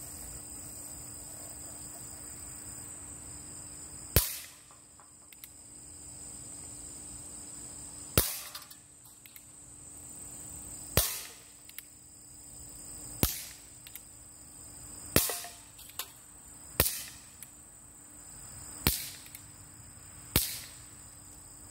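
CO2 Schofield revolver BB gun firing eight sharp shots, spaced about one and a half to four seconds apart.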